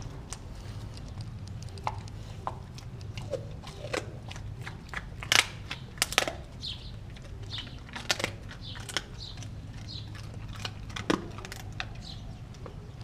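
A Kelpie–German Shepherd cross dog chewing raw meat: irregular crunches and clicks of teeth on meat and bone, loudest about five to six seconds in and again near eleven seconds.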